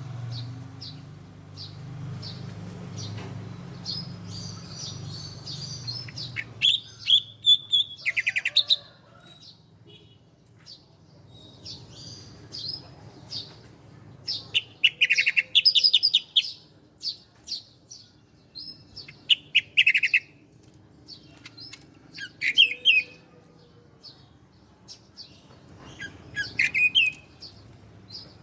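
Bar-winged prinia (ciblek) calling in bursts of rapid, sharp chirps with short pauses between them, over a low hum for the first several seconds.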